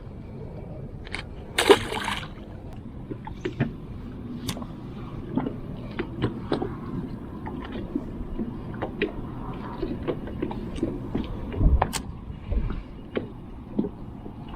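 Water lapping and sloshing against a fishing boat's hull, with many small knocks and ticks throughout. There is a louder brief rush about two seconds in and a sharp click later on.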